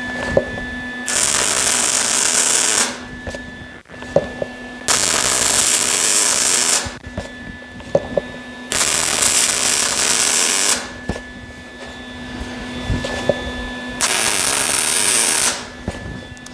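MIG welding arc crackling in four short runs of about two seconds each, stitching a bead along a pipe onto a sheet-metal panel. A faint steady hum carries on in the pauses between runs.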